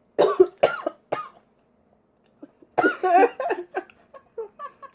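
A woman coughing in fits as food goes down the wrong way: three sharp coughs at the start, then a longer run of coughs about three seconds in that tapers into smaller ones.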